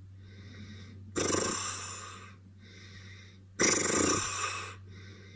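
A person snoring loudly: two rough, rasping snores about a second long, about a second in and again about three and a half seconds in, with quieter breathing between them.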